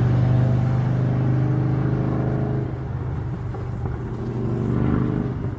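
Motor vehicle engine running nearby, a steady low hum that fades about halfway through and swells again briefly near the end.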